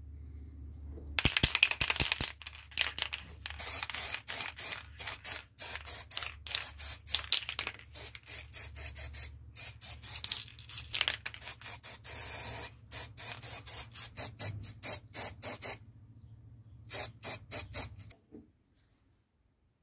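Aerosol spray paint can hissing in many short bursts with brief gaps, as yellow paint goes onto a small plastic part. The spraying starts about a second in and stops shortly before the end.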